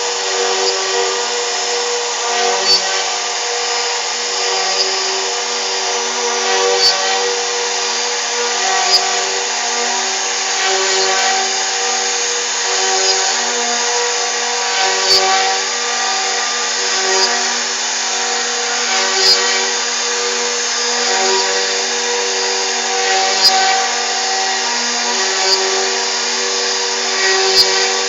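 CNC router spindle running steadily as it carves a 3D relief, with a short tick about every two seconds.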